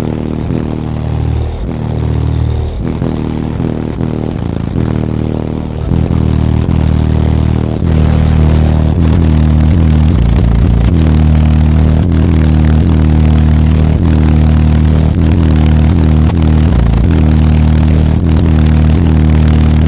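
Deep bass notes from a car audio system of nine CT Sounds EXO subwoofers, played loud enough to overload the recording. It gets louder about six seconds in and again about eight seconds in.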